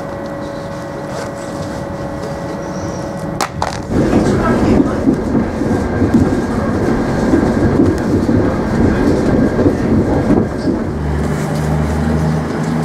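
A train running on the rails: a steady hum with a few held tones, a sharp click a little over three seconds in, then a louder rolling rumble from about four seconds in, which gives way near the end to a lower, steadier hum.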